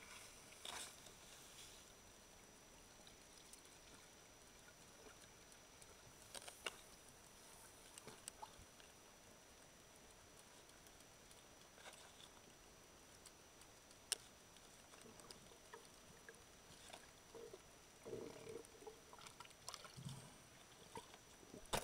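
Near silence underwater: faint scattered clicks and ticks, with a few low muffled bumps near the end.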